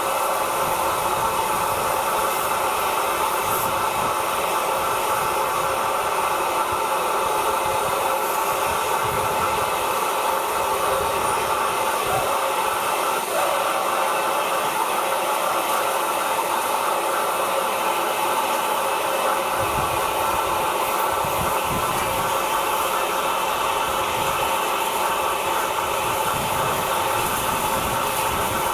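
Steam locomotive blowing off steam from a small pipe low down beside the driving wheels: a steady hiss that hardly varies.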